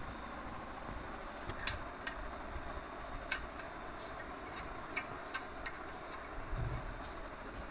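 Scattered light clicks and taps, one every second or so at irregular intervals, over a steady low hiss: small hard parts being handled during work on a basin mixer tap.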